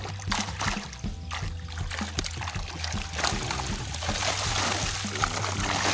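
Tilapia thrashing in a seine net drawn together in shallow pond water, splashing and spraying water. The splashing grows heavier and denser from about halfway in.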